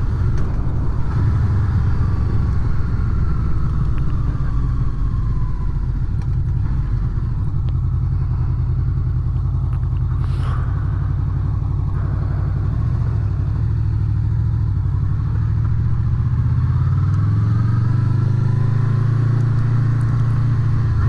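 Honda VFR800's V4 engine running as the motorcycle rides along, its note falling in the first few seconds and climbing again near the end. A brief click about halfway through.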